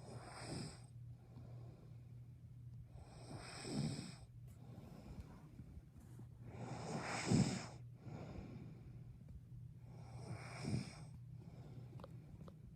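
A person snoring: four slow snoring breaths about three and a half seconds apart, the third the loudest.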